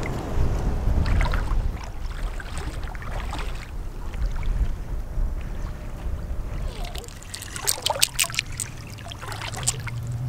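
Wind buffeting the microphone over shallow river water splashing around wading legs. A run of sharp clicks and splashes comes in the last few seconds.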